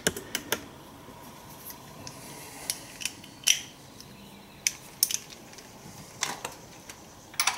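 Scattered metallic clicks and clinks, about a dozen at irregular intervals, from a 3/8-inch-drive ratchet with swivel and 14 mm deep socket being worked onto a PCV valve in the engine bay.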